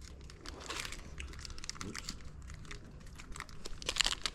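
Foil trading-card booster pack wrapper crinkling as it is handled and opened: a run of small, sharp crackles that grow denser near the end.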